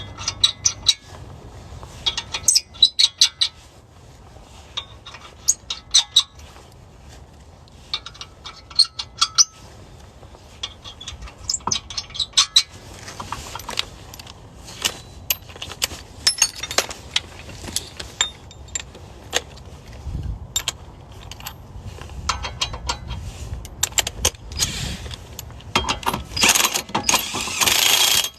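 Metal clinking and rattling of lug nuts and wheel hardware being handled while the spare goes onto the hub, in irregular clusters of sharp clicks. Near the end a pneumatic or electric impact wrench starts hammering steadily, running the lug nuts on.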